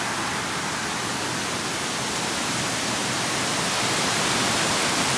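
Fast-flowing river water rushing with a steady hiss, the river running high and powerful.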